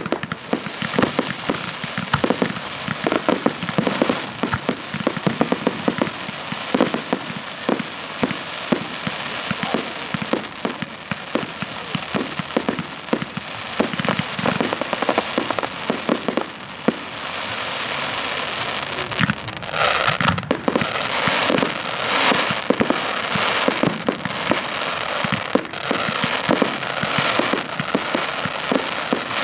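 Firework display: rapid, overlapping bangs and cracks from bursting shells, with crackling throughout. The crackle grows denser and louder from about two-thirds of the way in.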